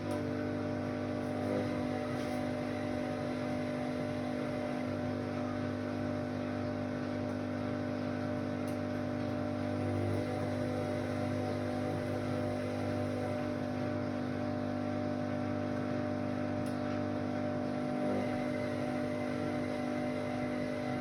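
Whirlpool AWOC 8283 washing machine's drum motor running with a steady hum and whine. It comes on right at the start.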